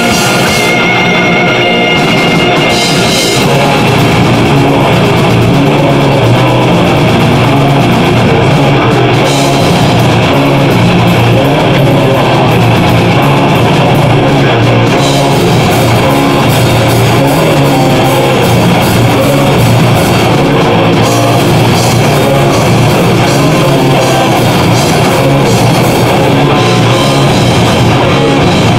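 Extreme progressive metal band playing live: two electric guitars, bass guitar and drum kit, loud and dense, with cymbal hits coming in a few seconds in.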